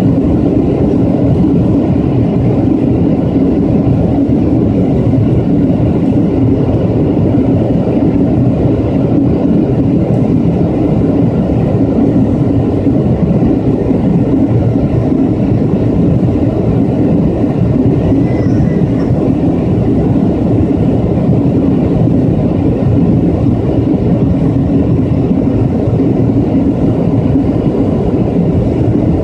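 Steady, low roar of jet airliner cabin noise in flight, heard from a window seat beside the engine: engine and airflow noise at an even level throughout.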